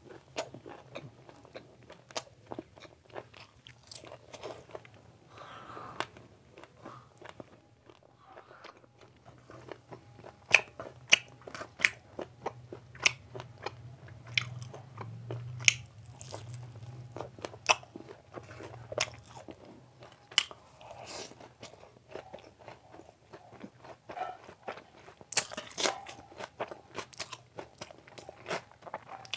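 Close-miked chewing of a person eating curry and rice by hand, full of wet mouth smacks and sharp clicks, sometimes several a second.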